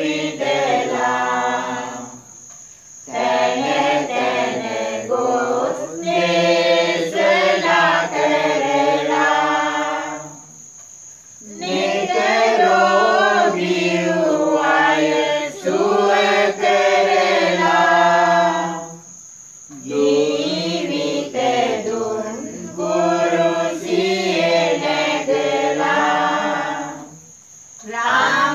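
A group of voices singing a Sinhala Catholic pasan, a Lenten passion hymn, in a slow chant-like style. The long sung phrases are separated by short pauses about every eight seconds.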